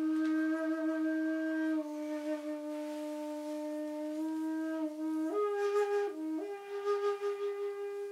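Solo shakuhachi (end-blown bamboo flute) holding one long, slightly wavering low note, then stepping up to a higher note about five seconds in, dipping back briefly and returning to hold it. Breath noise sounds at the note changes.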